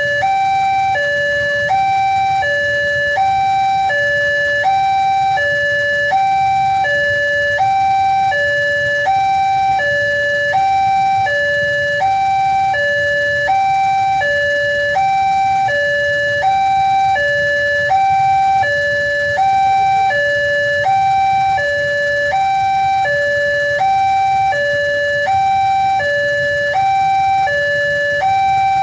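Railway level-crossing electronic warning alarm sounding a steady two-tone hi-lo signal, a lower and a higher tone alternating evenly about every two-thirds of a second, warning that a train is approaching and the barriers are down. A faint low rumble runs underneath.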